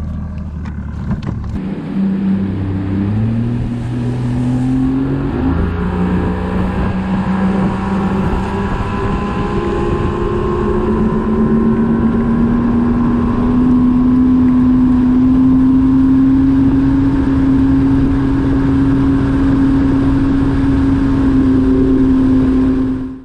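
Bass boat's outboard motor throttling up in steps over the first several seconds, then running steadily at speed, its pitch creeping slightly higher. It cuts off suddenly at the end.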